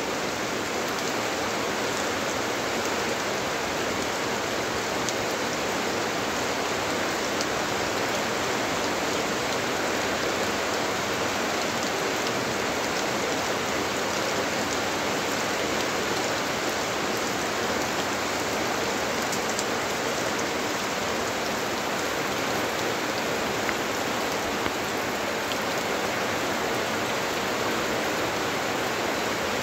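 Steady monsoon rain falling on crops and trees: an even hiss, with now and then a single nearer drop ticking.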